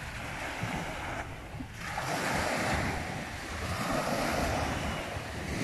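Small sea waves breaking and washing up a sandy shore, the surf swelling about two seconds in and again around four seconds, with wind buffeting the microphone underneath.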